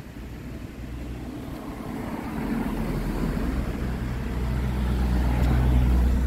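A car driving up the road and passing close by, its low engine drone and tyre noise growing steadily louder as it nears.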